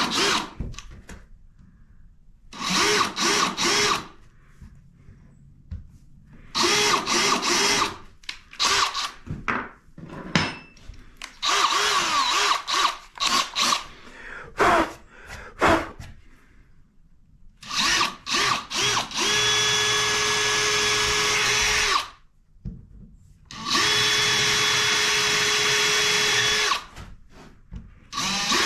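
Power drill run in repeated bursts of a second or two, each spinning up with a brief rising whine, then two steadier runs of about three seconds each near the end, with a few sharp knocks between bursts.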